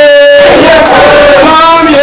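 A group of devotees chanting an Ayyappa devotional song together, singing long held notes, with the pitch stepping up near the end.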